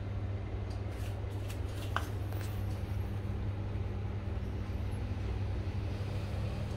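Steady low hum, with a few faint clicks a second or two in.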